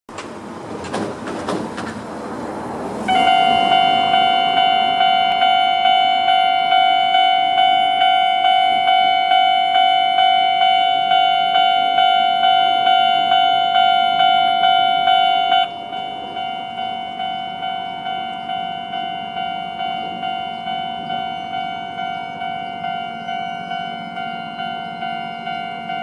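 Japanese railway level-crossing alarm giving the older standard electronic tone at a fast tempo, a bright ringing tone repeating about twice a second. It starts suddenly about three seconds in, after a rushing noise with a few clunks, and about three quarters of the way through it drops abruptly to a lower volume and keeps ringing.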